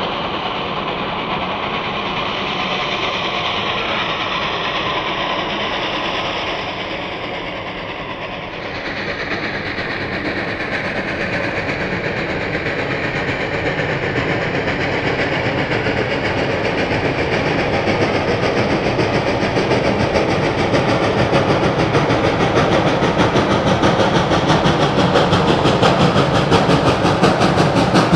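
Reading & Northern 425, a 4-6-2 Pacific steam locomotive, working with a fast, even exhaust beat. After an abrupt drop about eight seconds in, the sound builds steadily louder as the train approaches.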